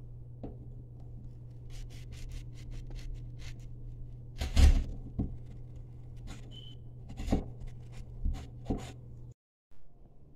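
Hands-on work at the wall while measuring and marking anchor positions: a run of light scraping strokes, then a loud thump about halfway and a few sharper knocks, over a steady low hum. The sound drops out for a moment near the end.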